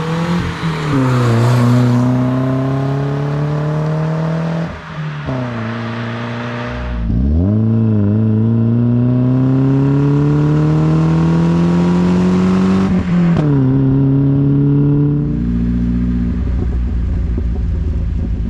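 BMW 316i Compact's M43 four-cylinder petrol engine running with its rear silencer removed, accelerating hard through the gears. The pitch climbs and falls back at each of several upshifts, then evens out to a steadier note a few seconds before the end.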